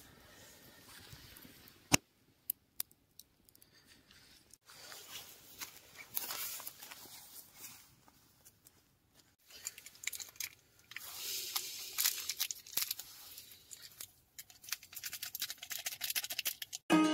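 A string of short camp-gear and campfire sounds. A sharp click and a few ticks come first, then a wood fire crackling and hissing, then rustling, clicking handling noise as a butane canister is fitted to a folding camp stove.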